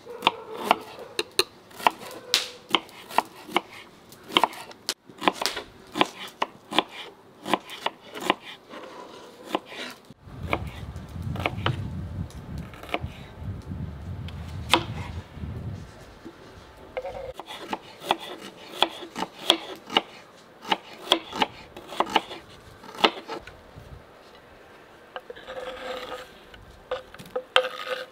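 Kitchen knives slicing onions on wooden cutting boards: a stream of sharp, irregular clicks as the blades strike the boards. A low rumble runs for several seconds midway.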